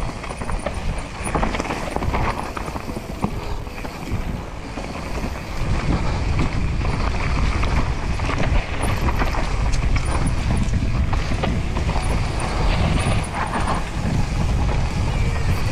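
Mountain bike riding fast down a dirt trail: a continuous rumble of tyres over dirt and roots, with the chain and frame rattling and knocking irregularly.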